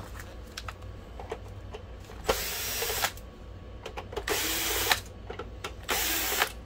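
12 V cordless drill-driver running in three short bursts of under a second each, backing screws out of a projector's lamp housing, with small clicks and knocks of handling between the runs.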